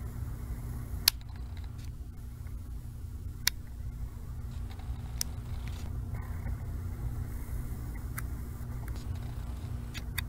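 A steady low hum with four short, sharp clicks spaced a few seconds apart: a small plastic toy and its packaging being handled.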